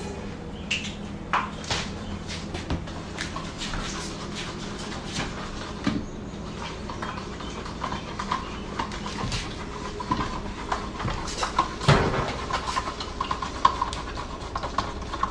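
Kitchen handling sounds: scattered clicks and knocks over a steady low hum, with one sharper knock about twelve seconds in. A faint, thin, wavering tone comes and goes in the second half.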